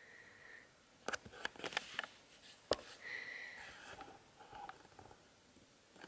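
English bulldogs snuffling and sniffing, broken by a cluster of sharp clicks and knocks about a second in and one louder click near the middle. A short high whine comes about three seconds in.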